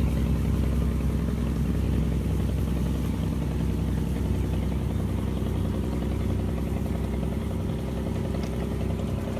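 A combustion engine running steadily at an even speed, loud and close.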